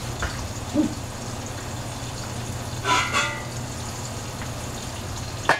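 A steady low hum, broken about three seconds in by a short horn-like toot, then near the end a sharp metallic clank with a brief ring as the stainless steel pot lid is lifted.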